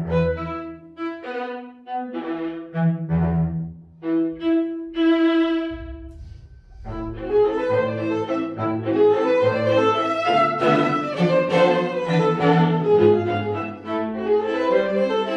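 String quartet of two violins, viola and cello playing: short, separated phrases with gaps for the first six seconds, then fuller continuous playing from about seven seconds in.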